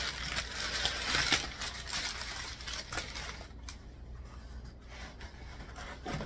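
Brown kraft packing paper rustling and crinkling as it is pulled out of a cardboard shipping box, loudest for about the first two seconds, then softer rustling and small knocks as the box contents are handled.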